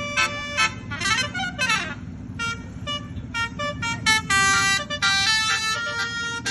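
Basuri musical 'telolet' bus horn playing a tune of short stepped notes, with rising and falling sweeping tones about a second in. A steady low rumble runs underneath.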